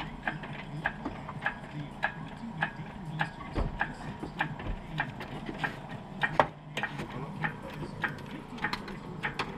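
Steady, even ticking, a little under two sharp clicks a second, over a low hum.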